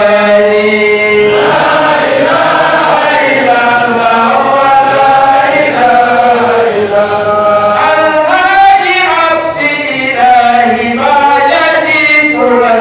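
A man chanting a melodic song into a handheld microphone, amplified: long held notes that slide and waver between pitches, with short breaths between phrases.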